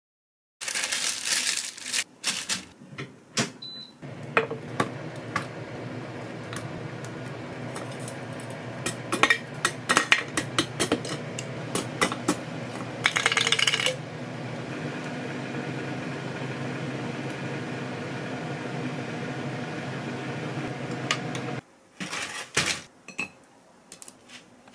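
Steady hum of an air fryer running, under spoon and container clinks and clatter. The hum starts about four seconds in and cuts off a few seconds before the end, after which a few clicks and knocks are heard.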